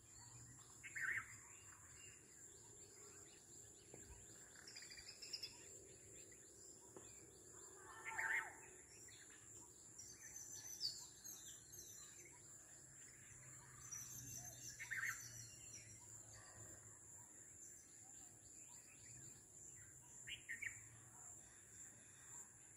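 Faint birdsong: short calls at intervals, about a second in, at eight, fifteen and twenty seconds, with higher chirps in between, over a steady high hiss.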